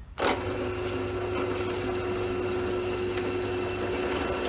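Benchtop drill press running at about 1000 RPM with a 6 mm brad point bit drilling through a strip of wood. It starts suddenly about a quarter second in and then runs as a steady motor hum with a steady tone above it.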